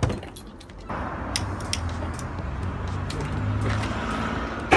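Propane roofing torch (a felt-roofing burner) hissing steadily once the gas is opened about a second in, with a few sharp clicks over it. A louder burst of flame noise comes right at the end.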